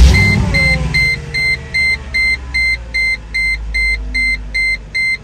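Mercedes SLK55 AMG's 5.4-litre V8 starting up after an oil change: it catches with a burst of revs, then settles to a steady idle. From about a second in, a car warning chime beeps evenly, about two beeps a second.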